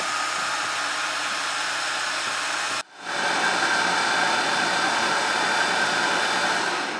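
Electric motor and chain-and-sprocket gearhead of a homemade milling machine running steadily: an even whir with a faint whine. It runs smoothly without vibration now that the primary drive gear has been replaced by a chain. There is a brief break about three seconds in, after which it runs on slightly louder.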